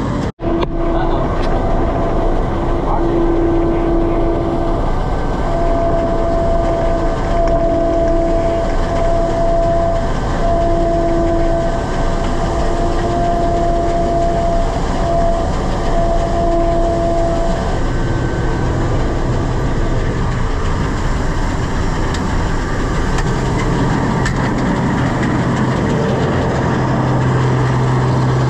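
International Harvester 1460 combine running steadily at harvest, engine and machinery noise throughout. A higher whine comes and goes through the first half, and a steady low hum comes in near the end.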